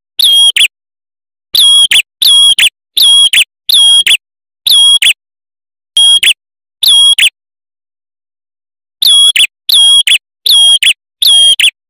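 Male prenjak kepala merah (a red-headed tailorbird) singing loudly on a lure recording: a run of short, clear, high whistled notes, each about a third of a second with a quick flick at its end, repeated about once a second, with a pause of about two seconds before the last four notes.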